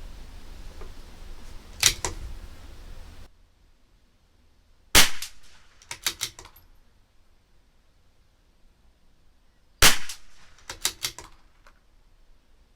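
Two .22 LR rimfire rifle shots from a CZ 457 LRP bolt-action rifle, about five seconds apart. About a second after each shot comes a quick run of metallic clicks as the bolt is worked to eject and chamber the next round. A single click comes about two seconds in.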